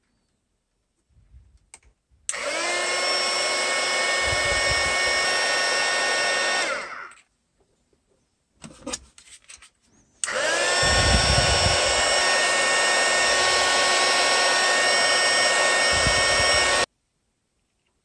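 Small hobby heat gun blowing hot air onto heat-shrink tubing: its fan motor runs with a steady whine and rush of air, twice, for about four and then about six seconds. Each run rises in pitch as the fan spins up. The first winds down and the second cuts off suddenly, with a few soft handling clicks between them.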